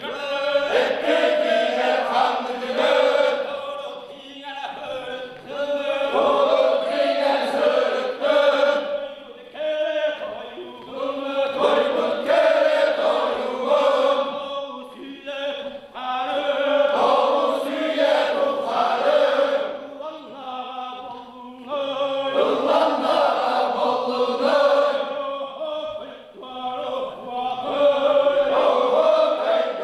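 Group of men chanting an osuokhai, the Sakha round-dance song, in sung phrases a few seconds long with brief breaks between them.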